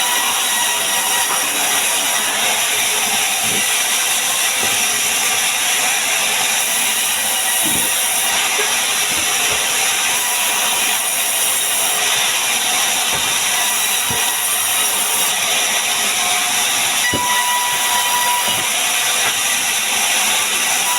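A power tool running steadily as it cuts or shapes wood: a continuous, even hiss with a few faint knocks scattered through it.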